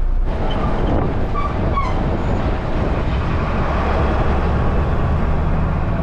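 A bus driving along a road, heard from inside: steady engine and road rumble.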